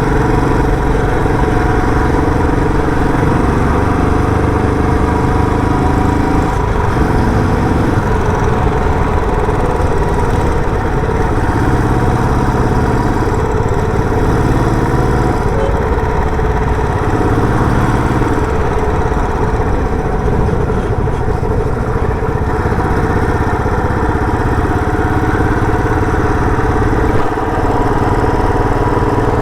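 Royal Enfield Bullet 350's single-cylinder four-stroke engine running through its stock silencer, with a steady exhaust note and small changes in engine speed as the throttle varies.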